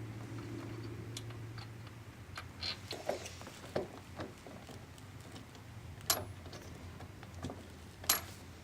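Light metallic clicks and small rattles of a bolt with its lock washer and flat washer being handled and threaded into a massage chair's frame by hand, over a faint steady hum. There are a few scattered clicks, with sharper ones about six seconds in and near the end.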